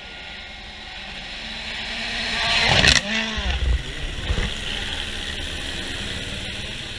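Rally car approaching at speed and passing close by, its engine pitch dropping sharply as it goes past about three seconds in, with a few loud bangs just after, then the engine fading away down the stage.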